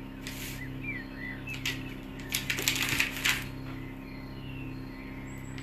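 A table knife scraping through soft butter and clicking against a bowl as the butter is cut and pushed into it. There is a short scrape near the start and a flurry of quick clicks and scrapes in the middle, over a low steady hum.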